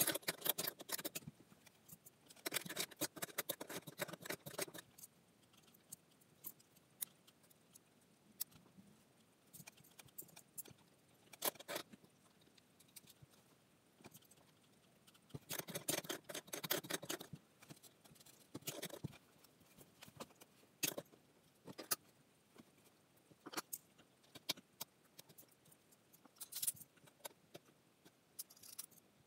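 Small metal parts and hardware being handled, clinking and rattling in three short clusters with scattered single clicks between them.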